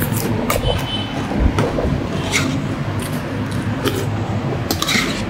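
Metal fork and spoon clicking and scraping against a plastic plate while eating rice: several short, separate clicks over a steady low hum.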